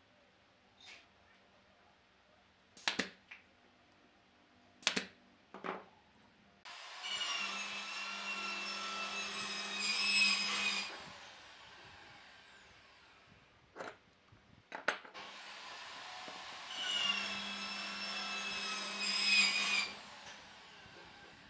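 An electric power tool motor runs twice, each time for about four seconds with a steady whine, swelling just before it stops and then trailing off. A few sharp knocks of wood come before it.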